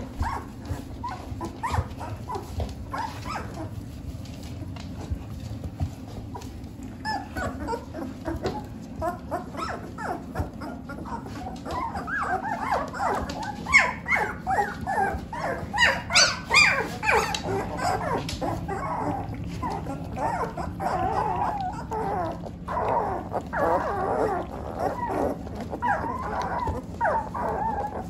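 A litter of 13-day-old shepherd-mix puppies whining and squealing, many short high cries overlapping, sparse at first and then busier and louder from about a third of the way in, over a steady low hum.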